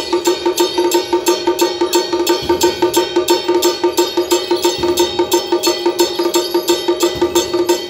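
Metal percussion of a Taiwanese temple drum-dance (tiao gu zhen) troupe: rapid, even gong and cymbal strikes, about four to five a second, over a steady ringing tone.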